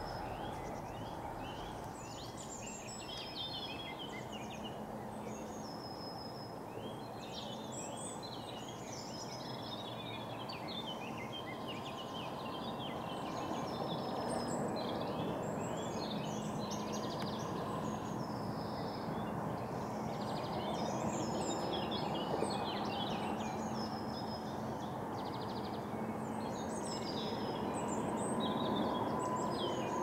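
Steady running rumble of the Territet–Glion funicular car travelling downhill on its track, with a faint hum that grows a little stronger near the end. Over it, many songbirds keep chirping and trilling.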